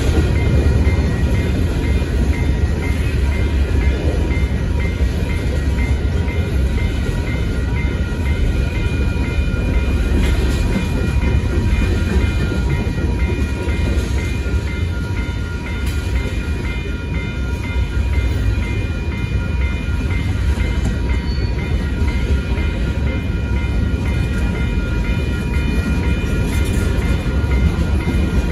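Freight train cars rolling through a grade crossing: a steady low rumble of steel wheels on the rails. Over it, the crossing warning bell rings about twice a second.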